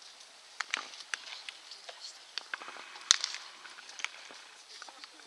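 Baseballs popping into leather gloves during a game of catch: scattered sharp pops, with one loud, sharp smack about three seconds in.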